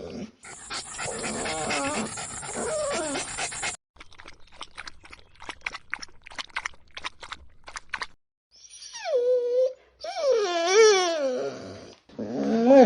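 A string of separate animal sound-effect clips. First comes a rough, noisy stretch of about three seconds, then about four seconds of rapid clicks, then several loud wavering whining calls that sink in pitch, dog-like.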